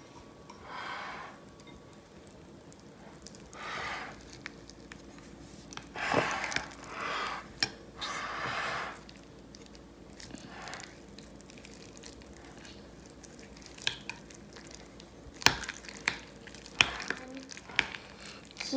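A metal utensil stirring chunky guacamole in a glass bowl: a series of short, soft squishing and scraping strokes, then a few sharp taps against the bowl near the end.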